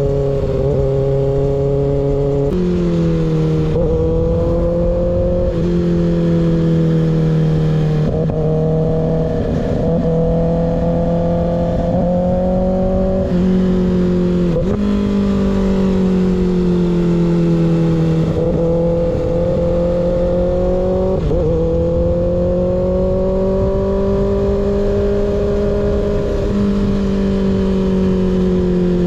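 Kawasaki ZX6R inline-four through an unbaffled M4 slip-on exhaust, running at steady moderate revs while riding. The engine note drifts gently and jumps abruptly in pitch every few seconds, typical of gear changes. Wind rushes underneath.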